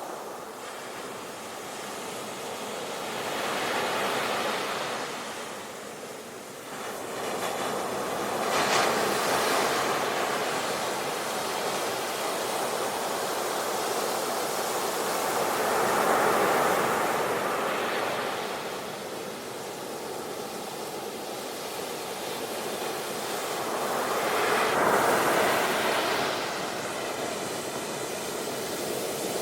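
Ocean surf, waves breaking and washing up a shore, the rush swelling and fading four times, with the sharpest break about nine seconds in.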